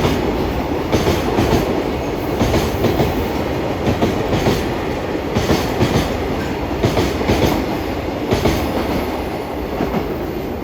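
Freight train of Koki container wagons rolling past at speed, the wheels clacking over rail joints in repeated groups over a steady rumble.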